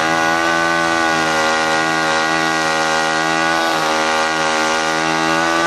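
Chainsaw held at full throttle, running at a steady high pitch.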